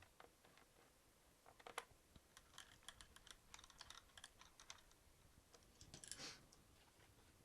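Faint scattered clicks and taps of a laptop's plastic case and small parts being handled during reassembly, busiest in the middle, with a short scrape near the end.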